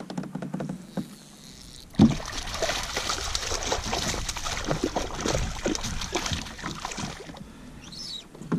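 A small hooked cutthroat trout thrashing and splashing at the water's surface beside a kayak. The splashing starts sharply about two seconds in and goes on for about five seconds before stopping.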